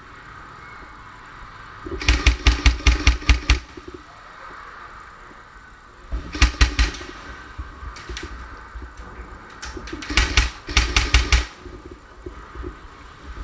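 Airsoft electric rifle firing three rapid full-auto bursts, each a fast string of sharp clicks: a longer one about two seconds in, a short one near the middle, and another longer one toward the end.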